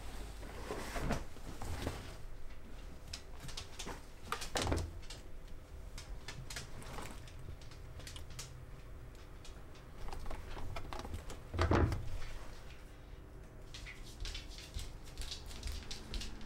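Laundry being handled and dropped into the tub of a top-loading washing machine: soft rustling of cloth and light knocks, with two duller thumps, about five and twelve seconds in.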